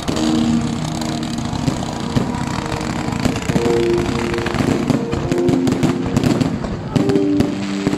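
Fireworks going off: dense crackling and popping with sharper bangs throughout. Held notes of background music sound under it.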